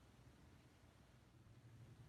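Near silence: dead air on a weather radio broadcast, a faint hiss with a low hum underneath.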